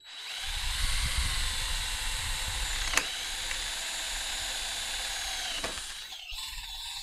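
Handheld power drill running at high speed, boring through aluminium extrusion in a drill jig. The steady motor whine holds for about five and a half seconds, with one sharp click about three seconds in, then winds down.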